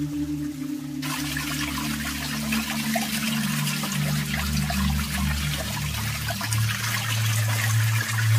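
Spring water falling off a rock and splashing onto pebbles and into a plastic bag held under the stream to fill it. The splashing starts abruptly about a second in and runs on steadily, over steady low background music.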